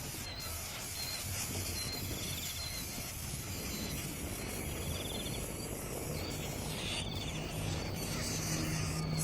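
Outdoor ambience: insects chirping in short repeated trills over a steady hiss, with a low hum underneath.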